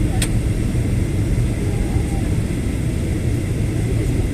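Steady low rumble of an airliner in flight, heard from inside the cabin: engine and airflow noise, with a single short click about a quarter second in.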